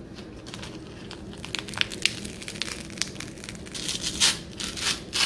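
Cecropia moth's silk cocoon being picked and torn apart by hand: many short, dry crackles and tearing sounds, loudest about four seconds in.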